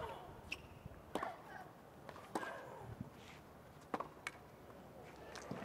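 Tennis rally: rackets strike the ball about every one to one and a half seconds, with the ball bouncing on the hard court between shots. A player grunts on some of the shots.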